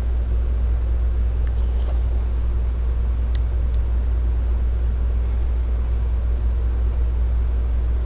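A steady low rumble of background noise, with a few faint small clicks about one and a half, two and three and a half seconds in.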